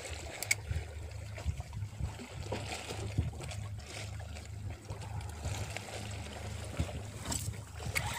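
Small fishing boat at rest on the water: a low steady rumble with faint water lapping and scattered light knocks.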